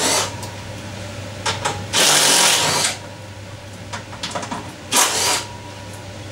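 Cordless screwdriver backing out the screws of a generator's sheet-metal air guide: the motor runs in one burst of about a second, two seconds in, and a shorter one around five seconds in. Small clicks and knocks of metal come in between.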